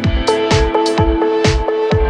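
Electronic dance background music with a steady kick drum about twice a second and held synth notes.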